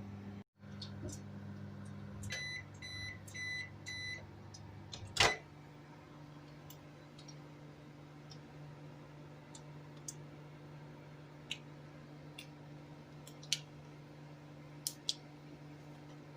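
Microwave oven humming as it runs, then about five evenly spaced high beeps a little over two seconds in. A sharp loud click follows, as of the door being released, then a few faint clicks over a lower steady hum.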